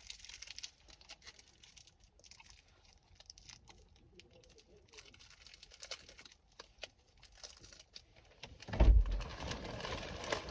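Plastic snack packet crinkling and rustling in small scattered crackles as the snacks are handled, with a loud low bump near the end.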